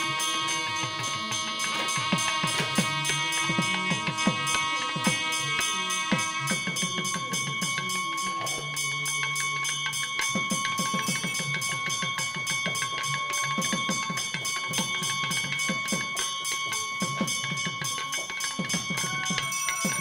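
Music with bells ringing: many long, steady ringing tones over a rhythmic low beat.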